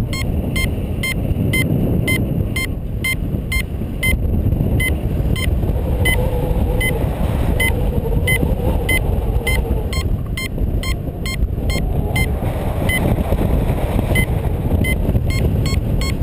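Wind rushing over the microphone in paraglider flight, with a paragliding variometer beeping in quick, even pulses, roughly two to three beeps a second: the vario's climb tone, signalling that the glider is rising in lift.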